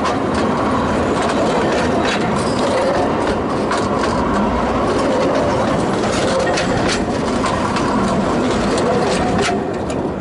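Narrow-gauge railway wagons rolling directly over the rails above the listener: a steady wheel-on-rail running noise with repeated sharp clicks as the wheelsets pass. It eases off near the end as the last wagon clears.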